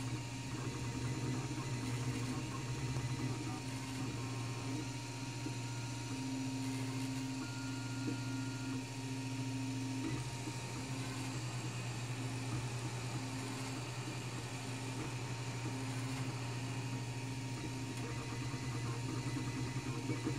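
Wanhao Duplicator 4 dual-extruder 3D printer running a print: a steady hum from its print-head cooling fans, with the stepper motors whining in tones that shift and switch on and off as the head moves.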